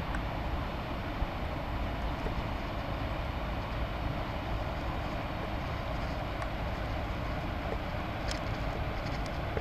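Steady low rumble of a passing river cruise motor ship, heard across the water, with a few faint ticks near the end.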